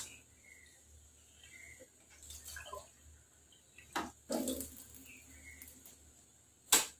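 Faint, sparse kitchen sounds: a sharp knock about four seconds in and another near the end, with a little quiet running or dripping water between them.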